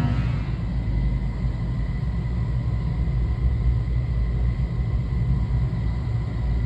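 Buffalo No. 66BX grinder running steadily: a low rumble with a faint, even whine over it.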